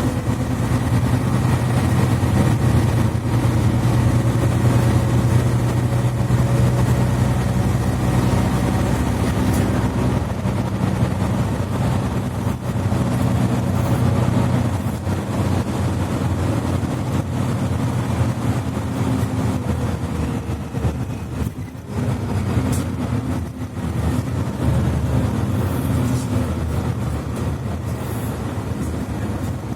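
Mercedes-Benz Citaro C2 articulated bus under way, heard from inside: a steady diesel engine hum through the Voith automatic gearbox, over road and rolling noise. The engine note is strongest in the first half, then eases off about halfway through, with a brief dip in level a few seconds later.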